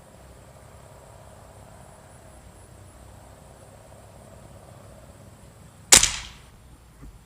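A single shot from a .177 Benjamin Nitro Piston air rifle: one sharp crack about six seconds in, fading quickly.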